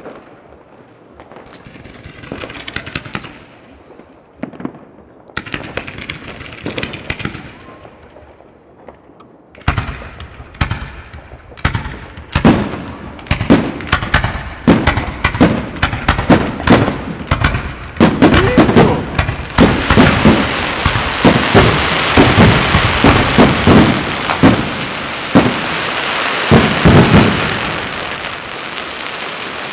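Fireworks going off. For the first ten seconds there are scattered cracks and pops. About ten seconds in, a rapid run of shell bursts begins, and it builds into a dense, continuous crackle in the second half.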